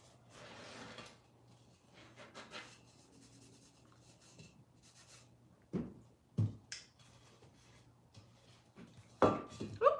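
Cloth rag rubbing and wiping over a painted colander, in soft scuffs, with a couple of sharp knocks about six seconds in as the colander is handled.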